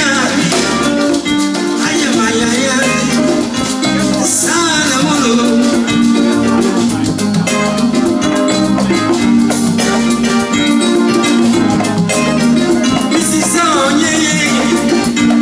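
Live highlife band playing a steady, dense groove, with a repeating bass line under percussion and lead lines that bend in pitch.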